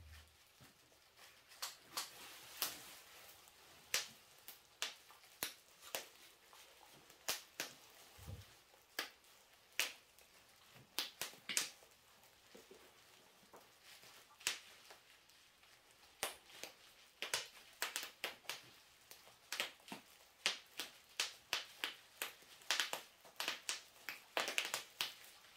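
Bubble wrap being popped, one sharp pop at a time at an irregular pace, the pops coming faster and closer together near the end.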